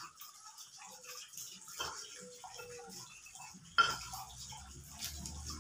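Stone pestle crushing and grinding chillies and shallots in a stone mortar (cobek): irregular scraping and small knocks of stone on stone, with one sharp knock a little under four seconds in.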